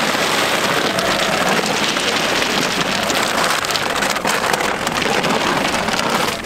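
Cattle feed cubes pouring from a bag into a plastic feed trough: a steady, dense patter of pellets striking the plastic and each other.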